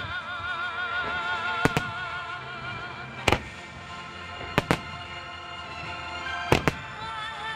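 Aerial firework shells bursting in sharp bangs, about every second and a half, several of them in quick pairs. Music with a wavering, vibrato melody plays underneath.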